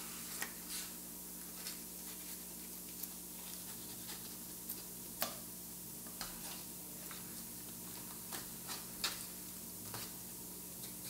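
Kitchen knife clicking and tapping on a wooden cutting board while cutting the thick ribs out of cooked cabbage leaves: scattered light clicks at an uneven pace, the sharpest about five seconds in and again about nine seconds in, over a faint steady hum.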